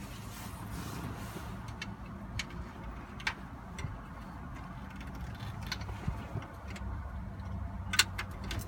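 Scattered light clicks and ticks of plastic console parts and screws being handled and fitted, over a steady low hum.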